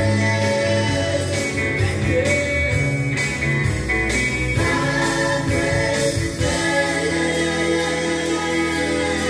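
Music with singing played from a vinyl record on a turntable through a hi-fi stereo system, heard through its large floor-standing loudspeakers in the room.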